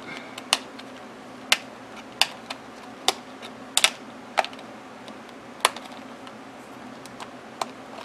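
Plastic disc-bound notebook discs being pressed onto the punched edge of a thin plastic cover sheet: about ten sharp, irregularly spaced clicks.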